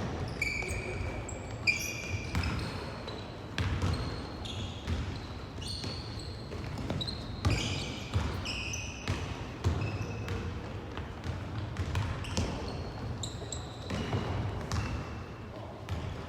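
Rubber-soled sports shoes squeaking briefly and often on an indoor court floor, among repeated thumps of a bouncing ball and the knocks of play.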